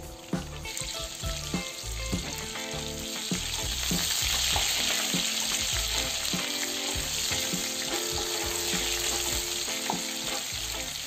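Marinated soya chunks deep-frying in hot oil in a kadhai: a steady sizzle that swells about a second in, with a wooden spatula stirring them.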